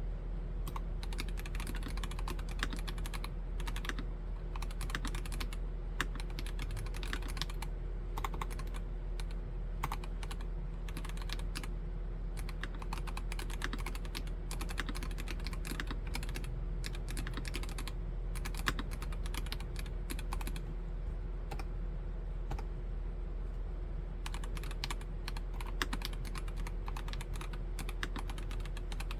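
Continuous typing on a Nori Spring Rider mechanical keyboard with Gateron Yellow Pro V2 linear switches: a steady stream of keystroke clacks with an occasional louder stroke, over a faint steady hum.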